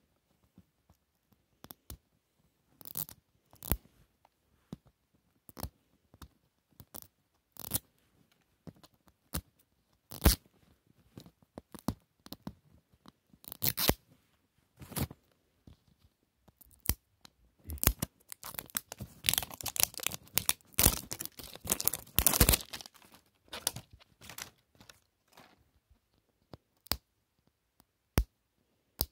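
Hands tearing and peeling the thin plastic wrapper off a plastic toy capsule ball: scattered crackles and short rips, with a dense run of crinkling rips about two-thirds of the way through.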